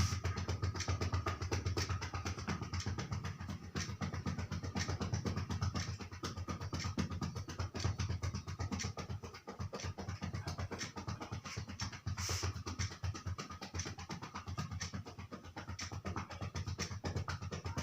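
Cupped hands patting the chest wall in a rapid, even rhythm: chest percussion to loosen congestion in the lungs so the phlegm can be coughed up.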